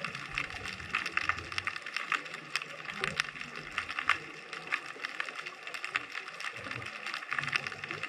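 Underwater ambience heard through a GoPro's waterproof housing: a steady, dense crackle of fine clicks, with low rumbling that comes and goes.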